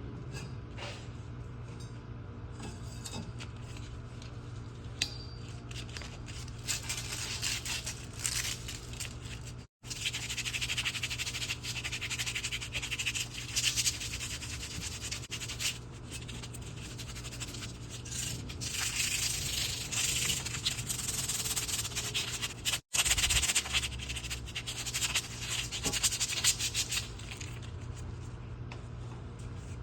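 Abrasive scouring of copper pipe, metal being rubbed back and forth in long scratchy stretches to clean it to bright metal for soldering, over a steady low hum.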